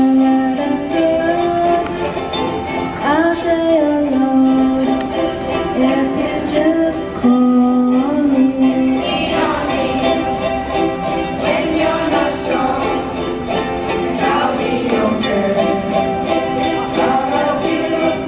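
A group of children strumming ukuleles in a steady rhythm while a girl sings the melody into a microphone.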